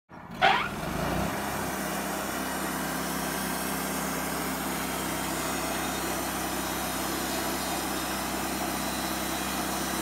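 Wood-Mizer portable band sawmill running steadily, its engine and band saw making an even machine noise. About half a second in, a brief loud high sound slides down in pitch.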